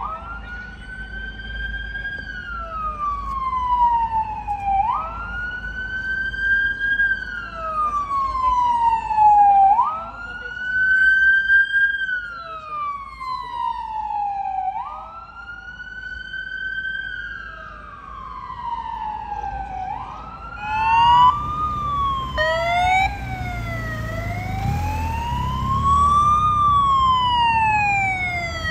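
Police sirens wailing. For the first two-thirds one siren repeats a cycle about every five seconds, rising quickly and then falling slowly. About 21 seconds in the sweep changes to an even up-and-down wail, a second siren briefly overlaps, and a low vehicle rumble rises underneath.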